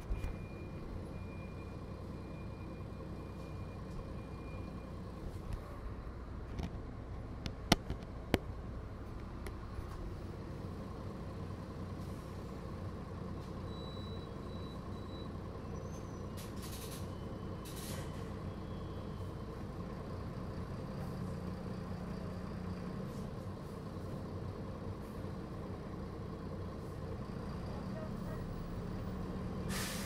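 Mercedes-Benz O500M city bus's diesel engine running steadily, heard from inside the bus, growing slightly louder in the second half. Sharp knocks come about eight seconds in, and two short hisses come a little past the middle.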